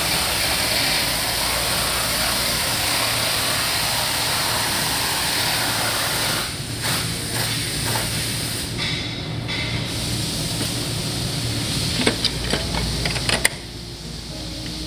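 A steady, loud hiss for about the first six seconds, then breaking up and turning uneven, with a few sharp metallic clicks near the end as the steel suspension bracket parts are handled.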